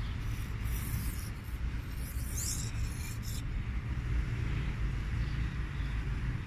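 Scratchy metal-on-metal rubbing, twice, as the knife sharpener's stone-holder rod slides through its pivot guide while being moved by hand, over a steady low rumble.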